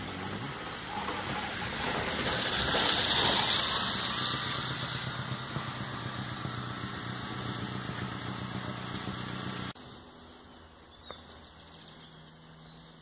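A motor vehicle engine running with a steady low hum and a rushing noise that swells loudest about three seconds in, then cuts off suddenly near the end, leaving birds chirping.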